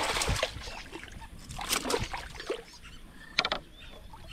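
Water splashing against a small boat, then a few sharp knocks on the hull, about two seconds in and again near the end.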